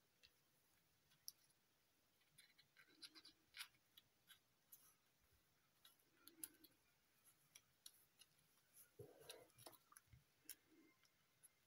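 Very faint crinkling and small clicks of foil paper being handled and pressed together while fitting the units of a modular origami cube, a little busier about nine seconds in.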